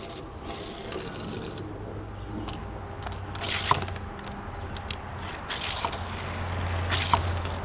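Die-cast Hot Wheels 1955 Chevrolet Bel Air rolling on a wooden tabletop and along an orange plastic track. It makes a light rolling scrape, with a few small clicks in the second half as it bumps onto and along the track.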